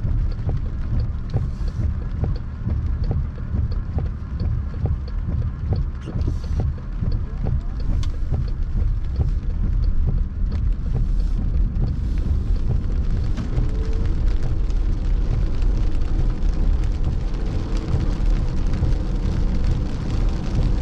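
Heavy rain pelting a moving car, heard from inside the cabin: a dense patter of drops over the steady low rumble of the car and road.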